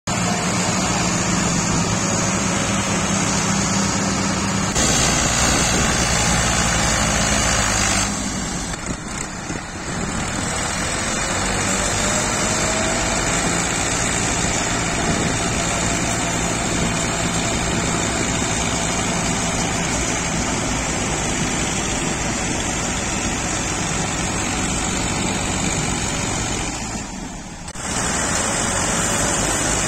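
Diesel farm tractor engines running hard under heavy load, straining to pull a brick-laden trolley that they fail to move. The sound changes abruptly a few times.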